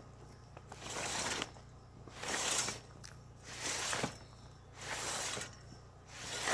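A metal pipe being pushed in strokes through the fabric sleeve of a tarp shelter cover, the fabric rustling and scraping against the pipe about five times, roughly one push a second or so.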